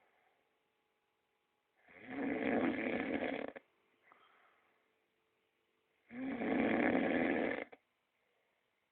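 A person snoring loudly, two long snores about four seconds apart with a faint breath between, so deep it is likened to a cow lowing.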